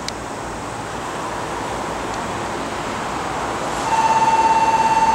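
Electric commuter train noise at a station platform, a low rumble that slowly grows louder. About four seconds in, a loud steady electronic alert tone starts abruptly and keeps sounding.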